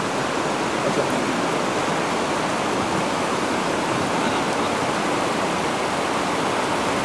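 Whitewater river rapids rushing steadily over rocks.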